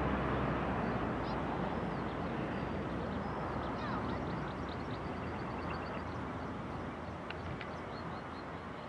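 Jet engines of a Boeing 737-800 (CFM56-7B turbofans) on final approach: a broad, steady rumble that slowly fades as the airliner passes and flies down to the runway. Small birds chirp faintly over it from about a second in.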